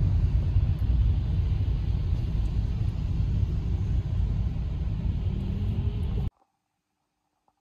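Steady low road and engine rumble heard from inside a vehicle travelling on a motorway. It cuts off suddenly near the end.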